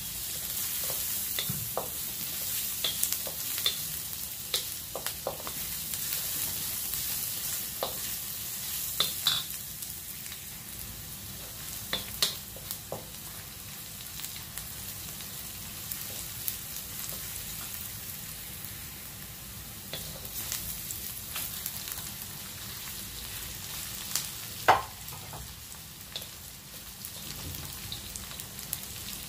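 Onion, garlic and ginger sizzling in hot oil in a stainless steel wok, stirred with a wooden spatula that clicks and scrapes against the pan now and then, with one sharper knock near the end. By the end, pork belly pieces are frying in the wok.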